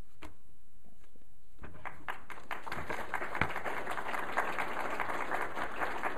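Audience applause: after a quiet moment with a faint click, clapping breaks out about a second and a half in and fills out into steady applause that keeps going.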